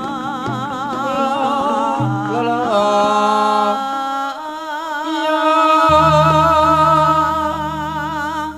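A sinden, a female Javanese gamelan singer, singing long held notes with a wide vibrato through a microphone over gamelan accompaniment. A deep sustained low note comes in about six seconds in.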